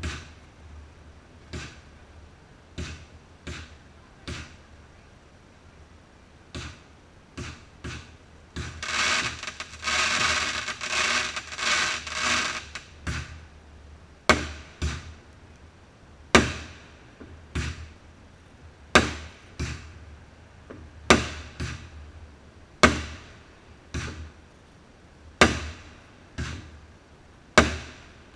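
Fireworks going off: aerial bursts with sharp bangs every second or two, softer at first and louder in the second half, each trailing off in an echo. About nine to twelve seconds in comes a few seconds of dense rapid crackling and hiss.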